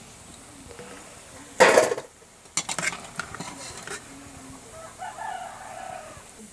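Metal slotted spoon clattering and clinking against an iron kadai and a steel plate as fried chicken pakoras are lifted out of the oil: one loud clatter a little over a second and a half in, then a run of lighter clinks. A chicken calls faintly near the end.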